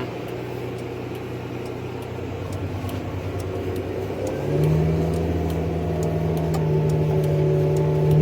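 Versatile tractor's diesel engine heard from inside the cab, throttling up about four and a half seconds in, its pitch rising and then holding steady as it gets louder. A hazard-flasher relay ticks steadily in the cab.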